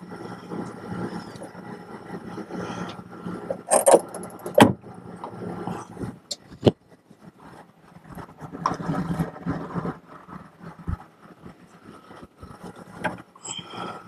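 Large plastic reagent jugs being handled and slid on the shelf of a tissue processor's reagent cabinet: scraping and rustling, with a few sharp knocks about four seconds in, a single click a couple of seconds later, and more shuffling after that.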